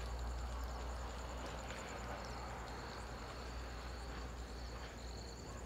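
Masala-coated whole fish shallow-frying in oil in a pan, giving a soft, steady sizzle. A cricket chirps faintly and steadily in the background.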